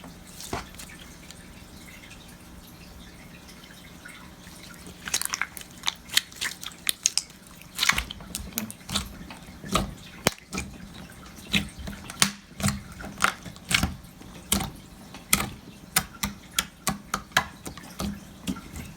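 Clear blue Elmer's slime being squeezed and stretched by hand, giving off wet pops and clicks. Quiet at first, the pops start about five seconds in and come irregularly, several a second.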